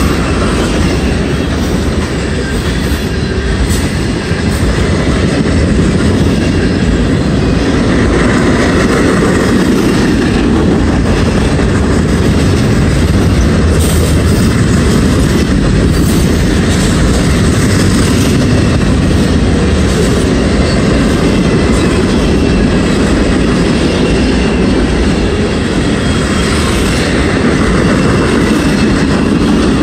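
Freight train of tank cars and boxcars rolling steadily past, its wheels clicking over the rail joints under a continuous loud rumble.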